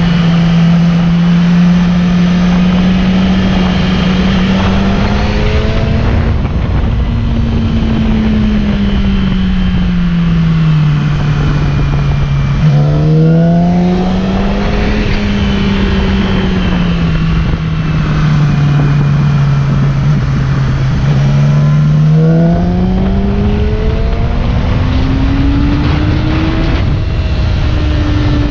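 Yamaha R6 inline-four engine heard from onboard while riding, its note rising and falling with the throttle through a run of bends, over a steady low rumble.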